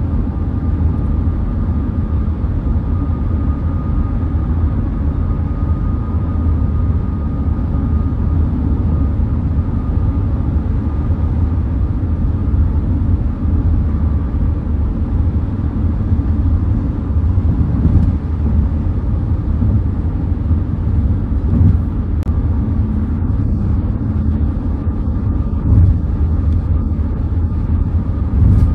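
A car driving along: steady low rumble of tyre and engine noise, with a few light knocks in the second half.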